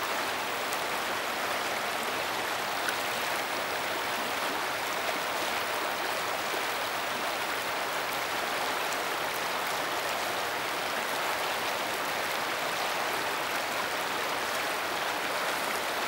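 Shallow river running fast over rocks: a steady, even rushing and rippling of water.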